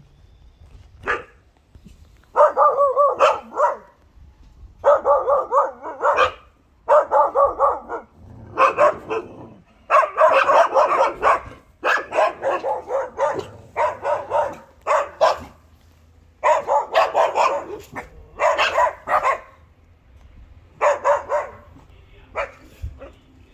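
A Bernese mountain dog puppy barking in about ten runs of quick barks, each run a second or so long with short pauses between. These are among its first attempts at barking.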